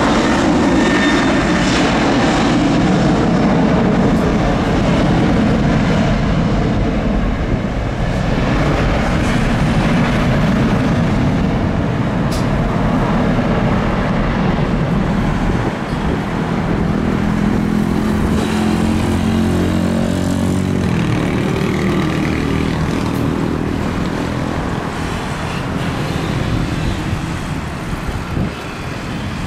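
Boeing 737 jet engines running loud on the runway, a steady heavy rumble and roar. About halfway through, the sound changes to a steadier engine hum with a few held tones.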